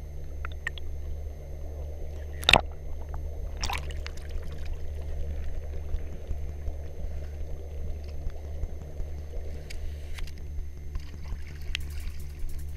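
Boat engine running steadily with water splashing and trickling along the hull. A sharp knock sounds about two and a half seconds in, and a lighter one about a second later.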